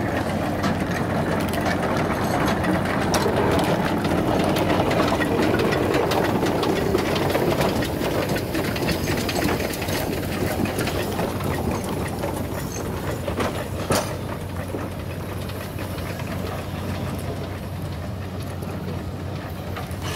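Cass Scenic Railroad geared steam locomotive working as it moves off, a rapid run of exhaust beats with the clatter of its running gear, loudest over the first several seconds and then fading. A single sharp knock about fourteen seconds in.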